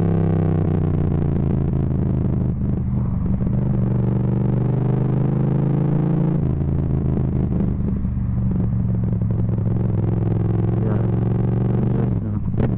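Yamaha MT-07's parallel-twin engine running through a full Akrapovic titanium exhaust with no dB killer, at cruising speed. The pitch falls slightly over the first two seconds, shifts about six seconds in and dips briefly near the end. It is loud enough to overload the microphone.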